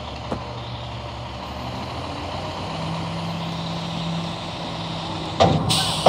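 Front-loading garbage truck's engine and hydraulics running while its lift arms hold a dumpster tipped over the cab, with a steady tone setting in about halfway. Near the end there is a bang, then a short burst of air hiss.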